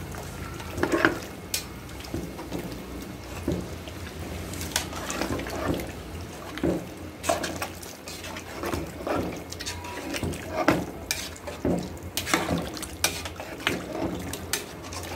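A metal spoon stirring chunks of mutton in coconut-milk gravy in a large metal pot: wet sloshing with irregular scrapes and clinks of the spoon against the pot.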